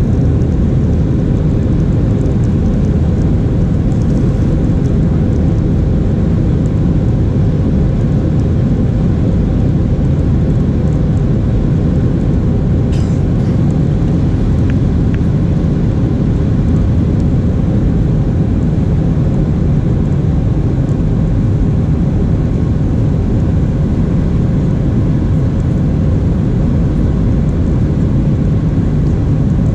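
Cabin noise of a Boeing 737-800 climbing after takeoff, heard at a window seat over the wing: its CFM56-7B turbofan engines and the airflow making a steady, loud, low-pitched noise with a faint steady hum in it. A brief click about 13 seconds in.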